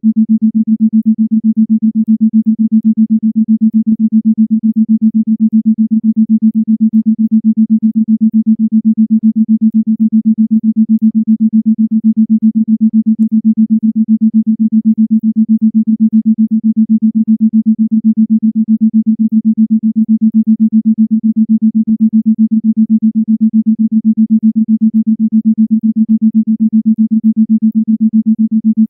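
Isochronic tone: a single low electronic sine tone at a steady pitch, switched on and off in rapid, evenly spaced pulses.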